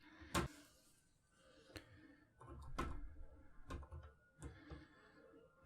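Faint plastic clicks and knocks, about five spread over a few seconds, with some low handling rumble, as a LEGO minifigure's stiff head is worked round on its neck stud.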